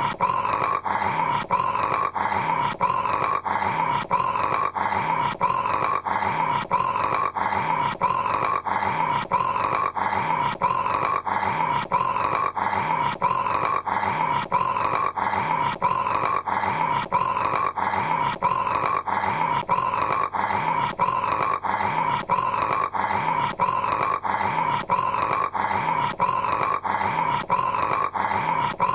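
A man snoring: a rough, growling rasp that repeats in an even rhythm about twice a second without a break.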